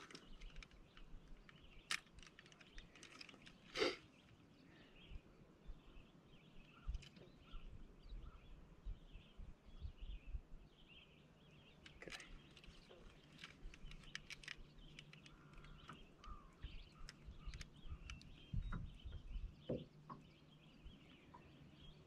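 Quiet open-air ambience: faint bird chirps, scattered small clicks and knocks from handling close to the microphone, and bursts of low rumbling.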